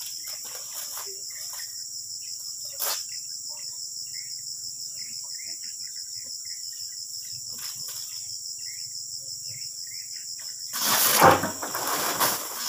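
A steady high-pitched insect chorus over a faint low hum, with small rustles and a single click. Near the end, a loud rattling rush as loose oil palm fruitlets are tipped out of a sack into the tractor trailer.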